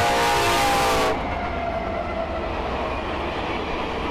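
Air horn of Union Pacific diesel locomotive 1943 blowing a steady chord, cut off sharply about a second in. After it comes the steady rumble of the passenger train rolling past.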